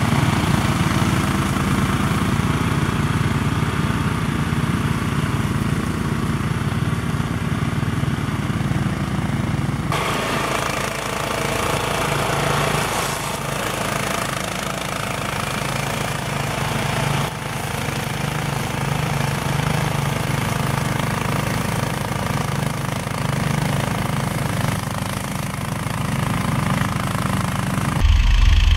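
Homemade front-mounted ATV mower cutting tall grass: the mower's small petrol engine runs steadily, driving the rotary blade by belt, together with the ATV's engine. Near the end the engine sound turns abruptly louder and deeper, heard right at the mower engine.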